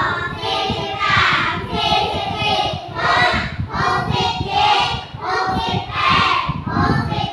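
A class of young children chanting aloud in unison in a steady, sing-song rhythm, reciting numbers together.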